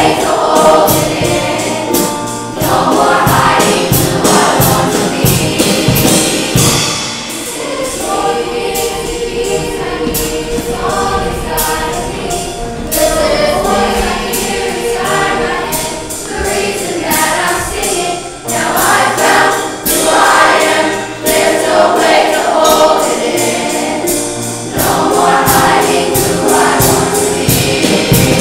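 Show choir singing together over accompaniment with a steady beat.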